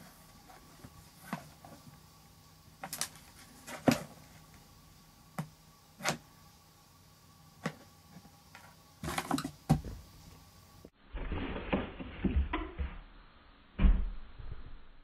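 Scattered sharp knocks and taps over a faint steady hum. About two-thirds of the way through the sound turns duller and busier, with rustling and thumps, the loudest thump near the end.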